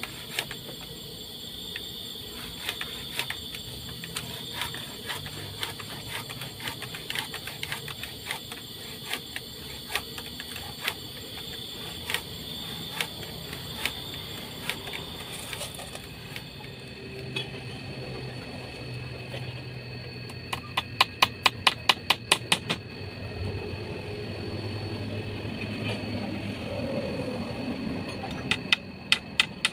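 A steady high-pitched insect drone, with scattered clicks and a run of about ten sharp knocks, roughly four a second, about twenty seconds in, and a few more near the end.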